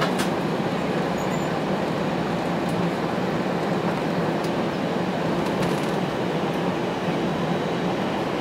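Steady cabin noise inside a jet airliner taxiing after landing: the engines running at idle, with a rumble from the plane rolling along the taxiway.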